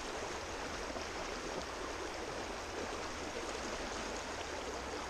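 River current rushing steadily over a shallow, riffled run, a constant even water noise.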